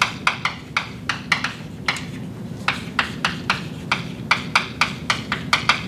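Chalk writing on a blackboard: a quick, irregular run of sharp taps and clicks, several a second, as each stroke of chalk strikes the board, over a steady low hum.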